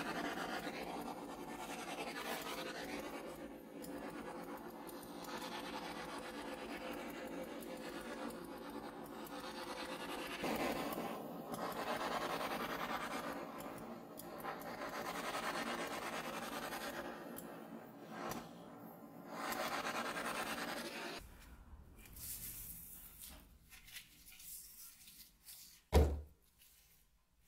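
Handheld butane torch burning with a steady hissing roar as its flame is played over a wooden axe handle to scorch it. It cuts out about 21 seconds in, leaving gloved hands rubbing the wood and a single sharp thump near the end.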